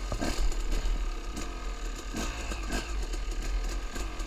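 Two-stroke KTM supermoto running as it rolls over a curb and onto bumpy grass, with irregular rattling knocks from the bike over the bumps and a steady low wind rumble on the microphone.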